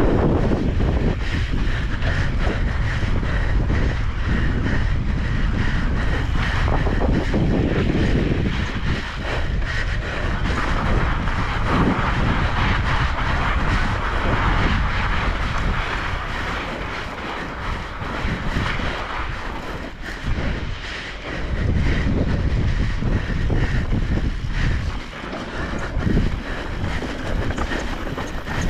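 Wind buffeting the microphone over continuous tyre rumble from an electric bike riding a sandy trail. The low rumble rises and falls throughout.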